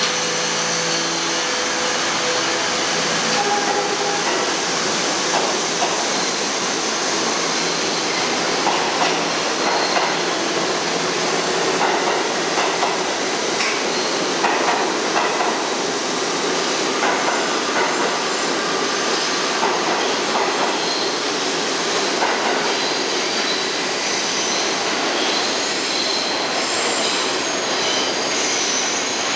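R68A subway train pulling out and running past on the far track: a steady rumble with wheels clattering over rail joints. High wheel squeal sets in near the end as it takes the curve into the tunnel.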